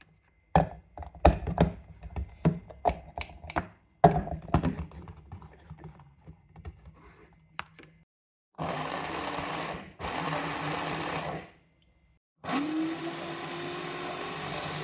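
Knocks and clatter of a food chopper's bowl and lid being handled. Then the electric food chopper's motor runs in three short pulses, chopping peeled garlic. The last and longest pulse opens with a rising whine as the motor spins up.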